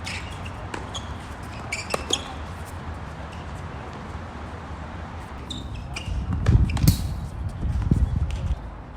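Wind buffeting the microphone in a steady low rumble, gusting up strongly about six seconds in for a couple of seconds, with the sharp pops of tennis balls being struck and bouncing on the court.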